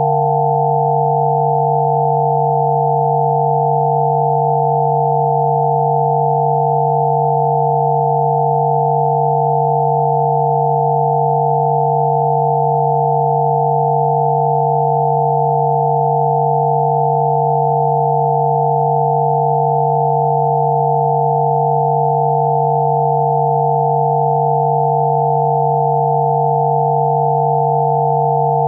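Steady electronic sine tones, a 'healing frequency' sound-therapy track: one low hum with several higher pure tones held above it, unchanging throughout.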